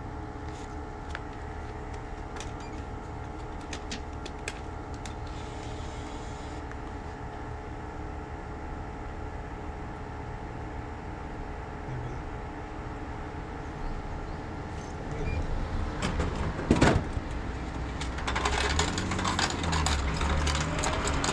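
Steady electric hum of a drink vending machine. About 17 seconds in there is one sharp knock, and near the end a stretch of irregular handling and rustling noise.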